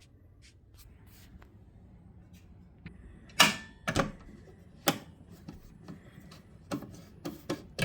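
A run of about seven sharp clicks and knocks over a quiet room, the loudest about three and a half seconds in, with others following at uneven gaps. A faint thin tone sounds briefly about three seconds in.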